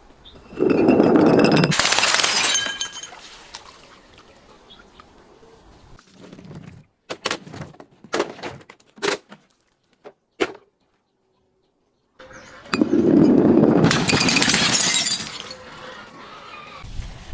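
Glass bottles breaking: two loud smashes, one about a second in and another about two-thirds of the way through, each trailing off in a clatter of shards. Scattered short clinks come between them.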